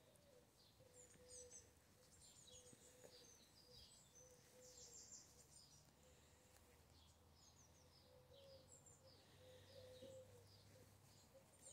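Faint outdoor birdsong: small birds chirping, with many short, high chirps and trills coming and going.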